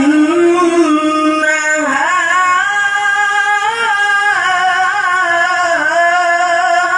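A male qari reciting the Quran in the melodic tilawah style, one voice holding long, high notes with wavering ornaments. The pitch rises about two seconds in.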